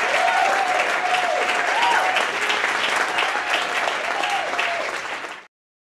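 Audience applauding, with a few voices calling out over the clapping; the sound cuts off abruptly near the end.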